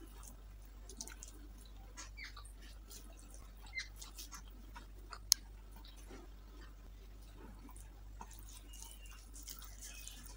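Faint chewing and mouth sounds of a person eating rice mixed with dal by hand, with soft squishes of fingers kneading the rice on a banana leaf. A single sharp click about five seconds in.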